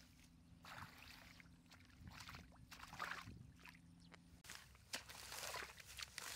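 Shallow muddy water sloshing and splashing as a man wades in rubber boots and gropes through it with his hands, in uneven splashes about once a second.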